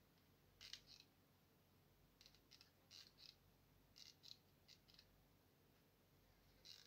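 Faint, sharp clicks coming in close pairs, about six pairs spread through an otherwise near-silent room.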